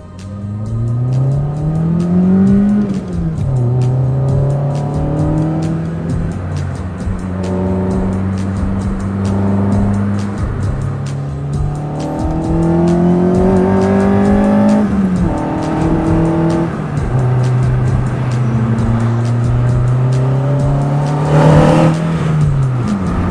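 Suzuki Swift GTI's 1.3-litre G13B four-cylinder engine running under load, its pitch rising and falling several times as the revs climb and drop. A brief loud rushing burst comes near the end.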